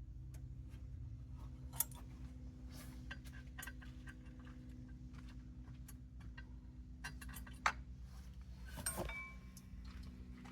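Scattered light metallic clicks and clinks of hand tools and bolts being worked on the engine, with a sharp click a little under 2 s in, another, louder one at about 7.5 s, and a short cluster near 9 s. A steady low hum runs underneath.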